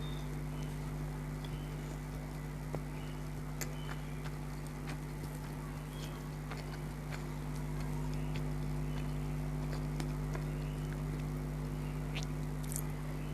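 A person chewing fried chicken with irregular wet mouth clicks and crunches, over a steady electrical hum.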